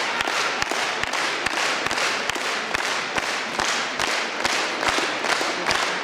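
Concert-hall audience applauding, the clapping fallen into a steady rhythmic unison at about two to three claps a second.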